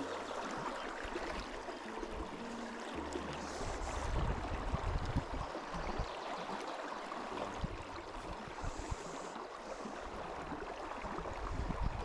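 Shallow river running over a stony bed: a steady rush of water, with occasional low rumbles.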